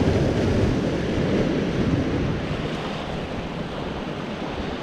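Ocean surf washing against rock jetty boulders, a little louder in the first two seconds and easing after, with wind buffeting the microphone.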